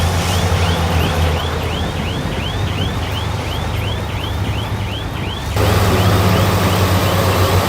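Bulldozer engine running steadily, picking up and getting louder about two-thirds of the way through, with a high squeak repeating about twice a second over it.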